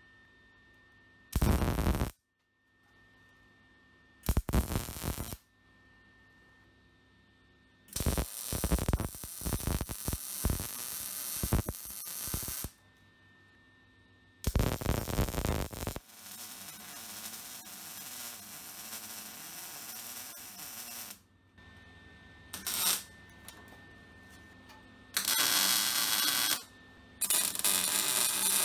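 MIG welder laying a series of short tack welds on a steel door frame, a crackling, sizzling arc that starts and stops. There are several bursts of a second or two and one run of about four seconds, with pauses and a faint hum between them.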